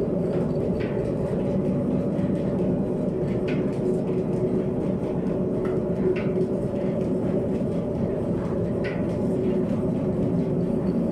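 Old mill and silo machinery running with a steady, even drone, with a light click every two to three seconds.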